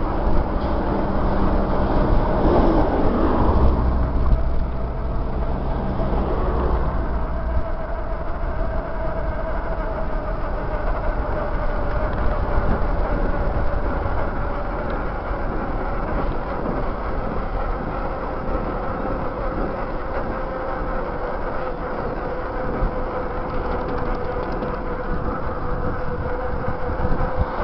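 Wind rushing over a handlebar-mounted camera and bicycle tyres rolling on asphalt on a fast downhill run: a steady rushing noise with a faint whine that slowly drops in pitch.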